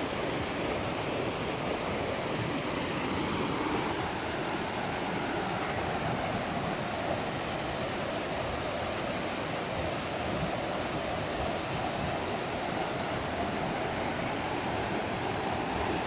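Muddy, fast-flowing river rushing over rocks and small rapids: a steady, even wash of water that doesn't let up.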